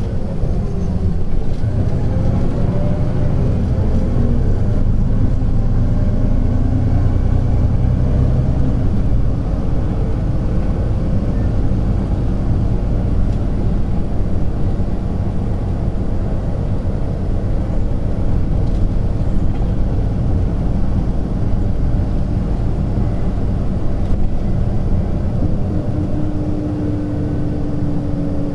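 Hino Blue Ribbon City bus's P11C straight-six diesel engine running, heard from inside the cabin with a window half open: a heavy, loud rumble whose pitch rises and falls over the first few seconds, then runs steadier. A steady whine comes in near the end.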